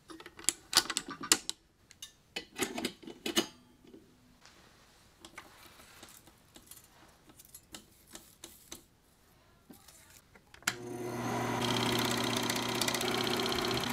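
Film projector: clicks and clatter from its mechanism being handled, then faint ticking. About eleven seconds in its motor starts and runs with a steady whir and hum.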